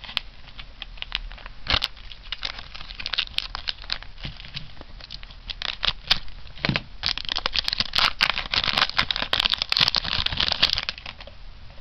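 Foil booster-pack wrapper crinkling with scattered crackles as it is picked up and handled, then a dense run of crinkling and tearing from about seven seconds in to near the end as the foil pack is torn open.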